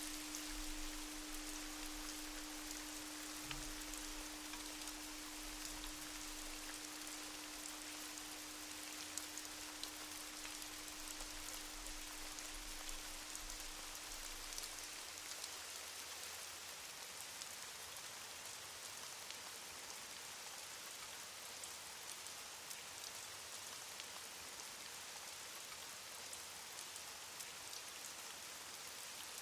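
Rain falling steadily, with scattered small drop ticks. A single low steady hum runs underneath and fades away about halfway through.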